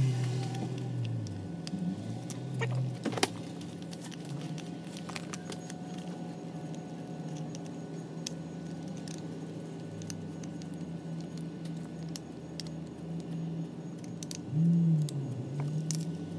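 Small metallic clicks, taps and rattles from a screwdriver and hand tools working at the end of a brushed 48 V golf cart motor, over a steady low hum. A louder, wavering low sound comes briefly near the end.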